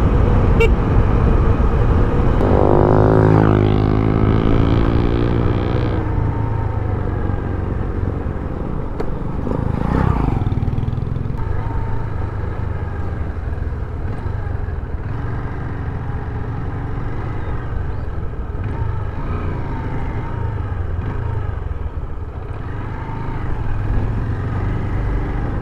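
Motorcycle engine running under way, rising in pitch as it accelerates about three seconds in, then running steadily.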